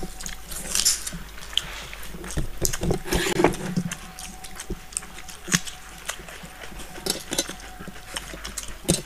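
Several people eating rice and fish curry with their hands: chewing and mouth sounds, with many short sharp clicks and taps scattered throughout.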